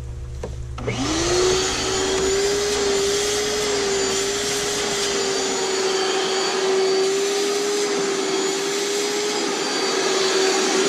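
Small shop vac switched on about a second in, its motor whine rising quickly to speed and then running steadily, sucking drilling dust out of a freshly drilled anchor hole in the wall.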